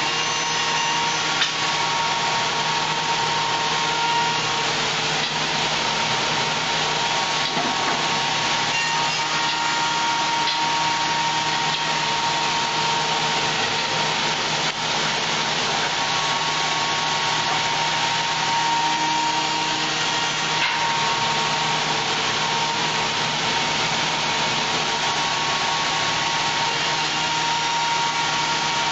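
CNC wood lathe's high-speed cutter head cutting a wooden blank: a steady rush of cutting noise over a constant machine hum, with a whine that swells and fades.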